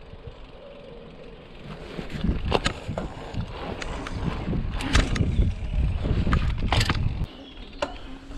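Mountain bike rolling over rough ground: low tyre and frame rumble with a series of sharp clattering knocks, loudest from about two seconds in until around seven seconds, when it drops back.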